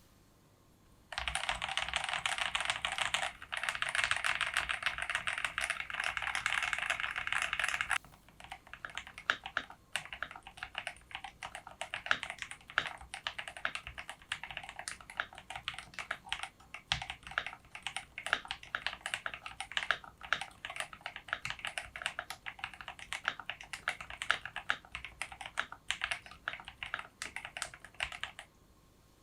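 Typing on a Kzzi K75 mechanical keyboard with TTC Gold Pink V2 linear switches. A fast, dense run of keystrokes comes first, with a short break about three seconds in, then steady typing of separate key presses that stops shortly before the end.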